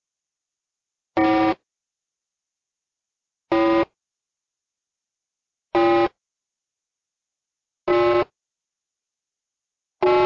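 Countdown-timer beep sound effect: five short beeps about two seconds apart, with silence between them.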